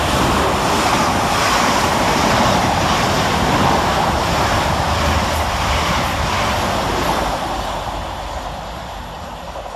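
Two coupled Class 444 Desiro electric multiple units passing fast without stopping: a steady rush of wheel and air noise that fades away over the last few seconds.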